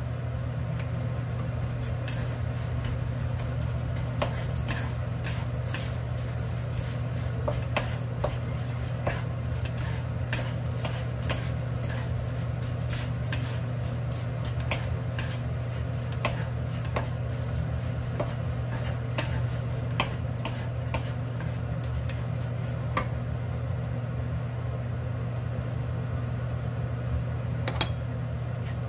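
Wooden spatulas stirring and tossing small dried anchovies in a nonstick pan, with irregular light clicks and taps of wood on the pan and the dry fish rustling, over a steady low hum.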